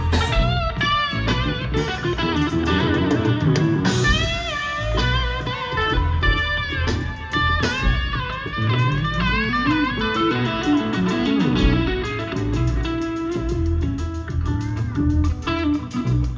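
Live rock band with a lead electric guitar solo on a Stratocaster-style guitar: bent notes and wide vibrato wavering up and down, over bass guitar and drums.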